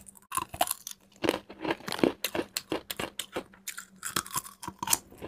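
Close-miked crunching and chewing of crispy fried broad beans, a quick irregular run of brittle crunches that keeps on through the bite.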